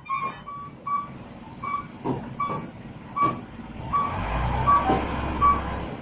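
Mercedes-Benz 917 truck's reversing alarm beeping steadily, about one short beep every three-quarters of a second, with a few brief knocks. About four seconds in, the truck's diesel engine rumble swells as it pulls.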